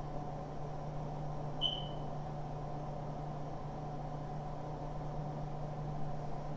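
A steady low machine hum runs throughout, with one short high tone under two seconds in.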